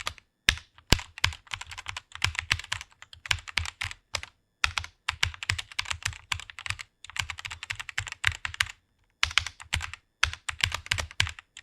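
Computer keyboard being typed on rapidly: fast runs of key clicks broken by brief pauses between words.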